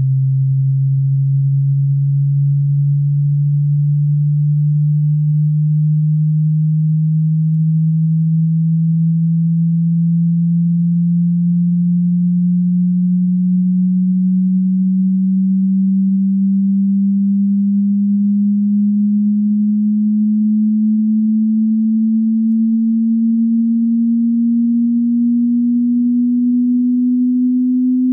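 A pure sine-wave test tone at a steady level, gliding slowly and evenly upward in pitch from a low hum to about an octave higher. It is a hearing-test frequency sweep running from bass toward treble.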